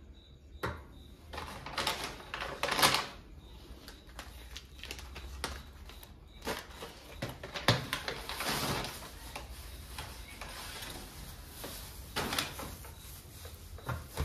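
Handling sounds of groceries being unpacked: a tin can set down on the counter, plastic shopping bags rustling, and items knocking against the countertop in irregular bursts.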